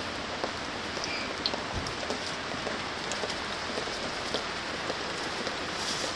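Steady rain on the roof of an Outwell Concorde L inflatable tent, heard from inside, with scattered taps of single drops. The roof fabric has soaked through and is leaking, which the owner takes for a flysheet needing a coat of water repellent.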